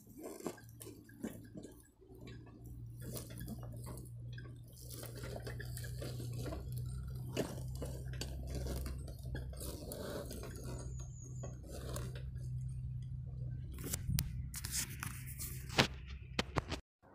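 A wheelchair moving over rough ground: a steady low hum with many scattered clicks and knocks.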